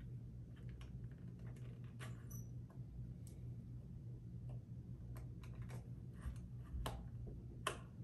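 Irregular small clicks and taps of objects being handled, a few louder ones about two seconds in and near the end, over a low steady hum.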